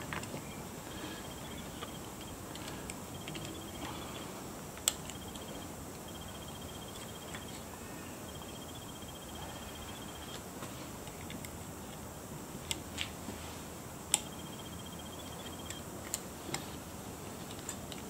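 A few sharp, scattered clicks of small steel pocket-knife parts being handled and pressed together over brass assembly pins while the back spring is set under tension. Behind them an insect trills in short, repeated bursts.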